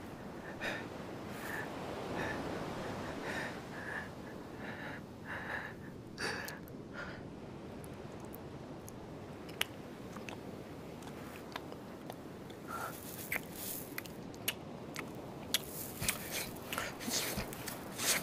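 Close-up wet mouth sounds of a man licking and chewing sandy grit off his own skin: breathy licking at first, then a run of sharp crunchy clicks in the last few seconds.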